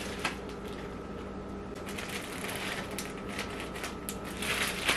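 Plastic zipper-lock bags holding marinating mushroom slices crinkling and rustling as they are handled and sealed, the crackling growing louder and quicker near the end as the bags are shaken.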